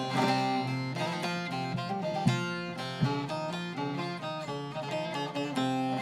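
Long-neck bağlama with a juniper bowl and spruce top, played with a plectrum: a quick picked melody of separate notes, with some strings ringing on steadily underneath.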